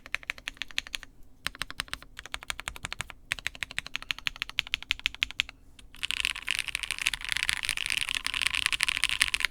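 Typing on a Maja Ergo PC keyboard with a POM plate, Durock POM switches and POM jelly keycaps. Runs of fast keystroke clicks break off briefly a few times, then at about six seconds turn into a dense, unbroken clatter of very rapid key presses.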